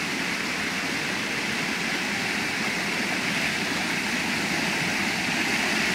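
Steady rush of water pouring over a low spillway into a shallow channel.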